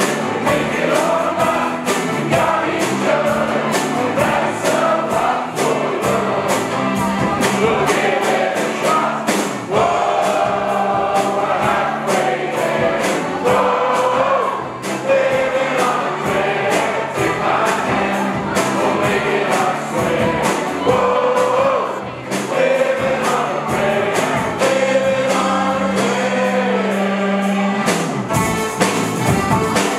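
An Up Helly Aa Jarl Squad singing a song together in chorus, with guitar accompaniment and a steady rhythmic beat.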